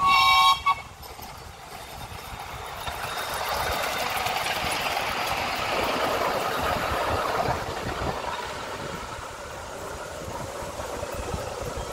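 A short, loud toot on a live steam miniature locomotive's whistle, then the 7¼-inch gauge engine running along the track, growing louder as it passes, loudest about five to seven seconds in, and easing off again.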